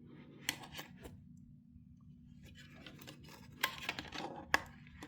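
Plastic parts of a Shark robotic vacuum being handled as its filter pieces are pulled out: a few light clicks, then a cluster of clicking and rubbing ending in one sharp click near the end, over a faint low hum.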